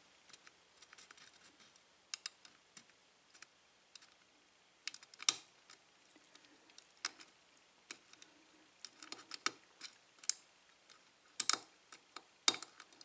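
Irregular small metallic clicks and ticks of a hook pick lifting and probing the pin stacks of a Sargent 5-pin lock cylinder held under tension-wrench pressure, during single-pin picking. A few clicks stand out louder, about five seconds in and again near the end.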